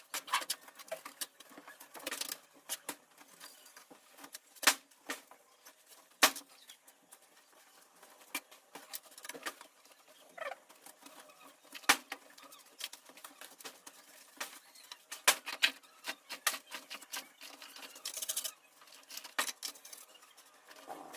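Irregular light clicks, taps and scrapes of hard objects being handled, with a few sharper knocks about five, six, twelve and fifteen seconds in.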